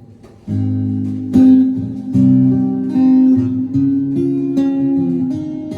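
Acoustic guitar playing a song's introduction: chords strummed and left ringing, starting about half a second in.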